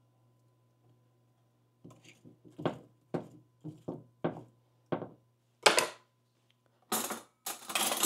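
Kitchen clatter: a run of separate knocks and clinks of pans and utensils being handled, starting about two seconds in, with louder, longer rattling clatter near the end.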